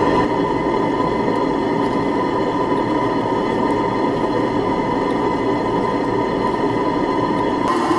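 Scale-model live-steam walking beam engine running under steam and turning its paddle wheels: a steady mechanical running noise. The sound shifts slightly just before the end.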